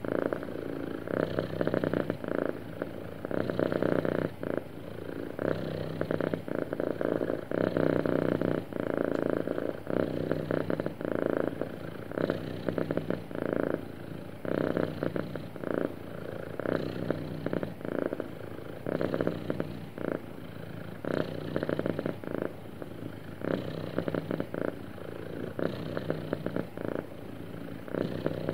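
A contented domestic cat purring close up, the purr swelling and easing in a regular cycle roughly every one and a half to two seconds as it breathes in and out.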